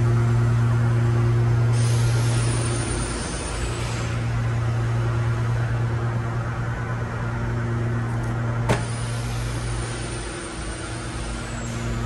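Steady industrial plant machinery drone: a strong low hum with higher hum tones over a constant noise bed. A faint high whine comes in twice, and a single sharp click sounds about nine seconds in.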